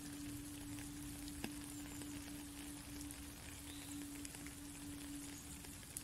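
Rain falling steadily on a puddle and wet ground, with scattered drops and one sharper drop about a second and a half in. Under it an indigenous flute holds one long low note, which fades out near the end.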